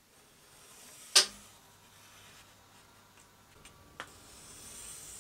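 Pencil drawing a line along a steel ruler on hardboard: a light, high scratching near the end. A sharp click about a second in is the loudest sound, with a smaller click near four seconds and a few faint ticks.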